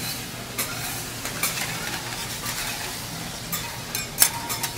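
Food sizzling on a teppanyaki griddle: a steady hiss, with scattered sharp clicks of metal utensils. The loudest click comes about four seconds in.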